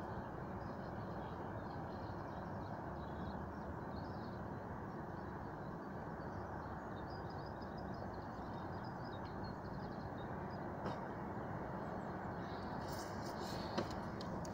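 Outdoor ambience: a steady low background hiss, with faint scattered bird chirps. Near the end come some rustling and a sharp click or two.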